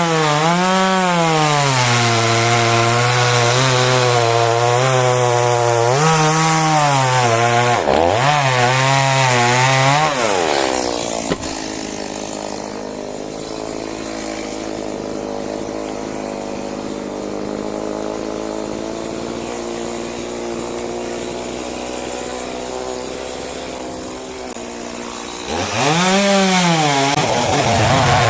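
Two-stroke chainsaw cutting through coconut wood, its engine pitch sagging and recovering under load. About ten seconds in it drops back to a quieter idle for some fifteen seconds, then revs up loudly again near the end.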